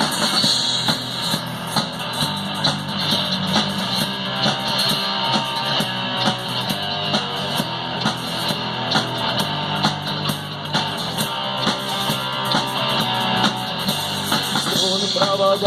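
Instrumental rock music: guitars over a drum kit playing a steady beat, with a voice starting to sing right at the end.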